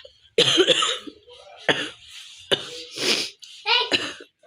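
A woman coughing hard, about five separate coughs in a row, the first one longer than the rest. It is a genuine cough from being unwell, not a faked one.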